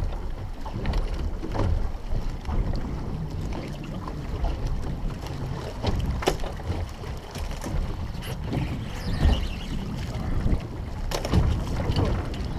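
Wind buffeting the microphone over the sea noise around a small boat, a steady low rumble with a few sharp knocks, the clearest about halfway through and again near the end.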